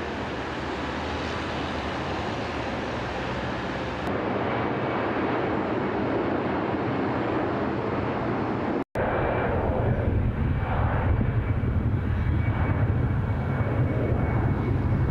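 Jet aircraft engine noise: a steady, dense rush. After a brief dropout about nine seconds in, it comes back louder with a deeper, uneven rumble.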